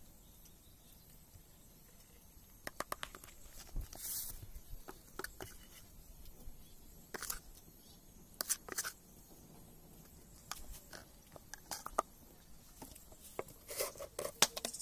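Scattered clicks and taps of a metal spoon and spice containers against a stainless steel mixing bowl while spice powders are added to chicken and potatoes, some taps with a brief metallic ring.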